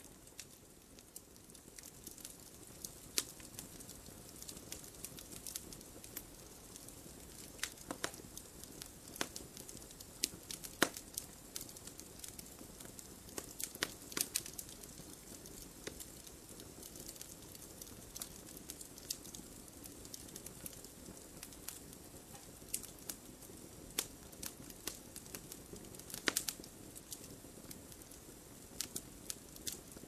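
Wood campfire burning: irregular sharp crackles and pops, some much louder than others, over a steady low hiss of the flames.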